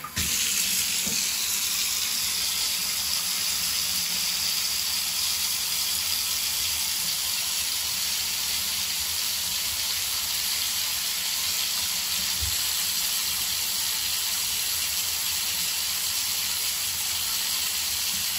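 Water running steadily from a thermostatic bath mixer into a bathtub, switched on right at the start.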